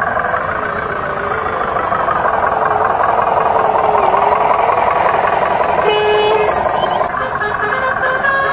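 Miniature RC dump truck's motor running with a wavering whine that rises and falls. A short horn toot sounds about six seconds in.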